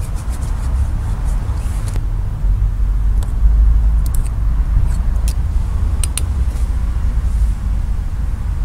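Steady low rumble of road traffic, with a few sharp clicks and taps of a utensil in a metal camping pan.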